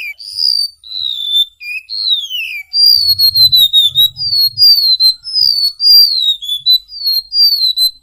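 Golden-bellied gerygone (remetuk laut) singing: a string of clear, high whistled notes, each sliding downward. The first few are long, drawn-out slurs, and from about three seconds in they come as a quicker run of short down-slurred notes.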